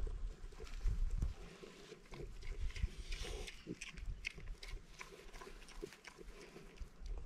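Farm animals calling with short, scattered sounds, over low rumbling thumps in the first second or so.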